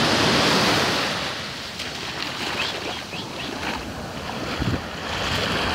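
Surf on a rough sea breaking and washing up a sandy beach. The wash is loudest at the start, eases off, then builds again near the end as the next wave comes in.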